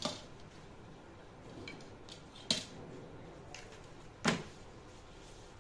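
Sharp clicks and knocks of tailoring tools handled on a cutting table: two louder knocks about two and a half and four and a quarter seconds in, with a few fainter clicks between.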